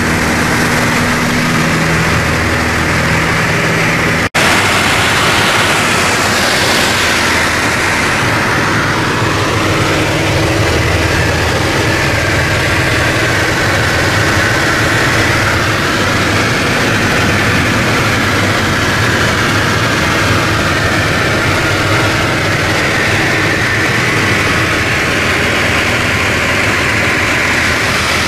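Light single-engine propeller airplane's piston engine at takeoff and climb power, heard inside the cockpit: a loud, steady drone of engine, propeller and wind. It cuts out for an instant a little over four seconds in, then goes on as a denser, noisier drone.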